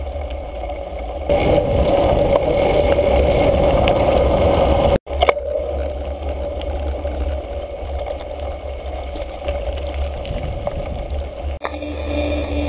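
Steady riding noise from a bicycle-mounted camera: wind rumbling on the microphone over the rolling and rattling of the bike. The sound breaks off abruptly twice, with a brief dropout about five seconds in and a sudden change near the end.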